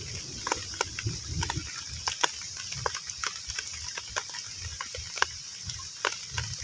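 Heavy rain falling on a pond: many separate drops plinking and plopping on the water surface over a steady high rain hiss, with a low rumble that fades about a second and a half in and returns near the end.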